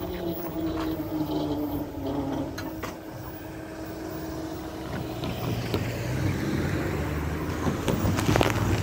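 Railroad crossing gate arms rising with a steady mechanism hum, then cars pulling up and driving over the crossing, their engines building and their tyres knocking on the rails near the end.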